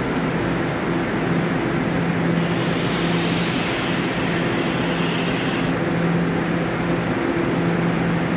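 Railway platform ambience: a steady rushing noise under a low hum that drops out now and then. A higher hiss comes in about two and a half seconds in and stops about three seconds later.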